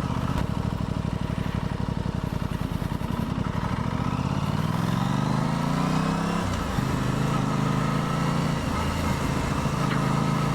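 2023 Aprilia Tuono 660 Factory's parallel-twin engine pulling along at low revs, with wind rush on the helmet-mounted microphone. About halfway through the revs climb for a couple of seconds, then drop abruptly, and the engine settles back to a steady pace.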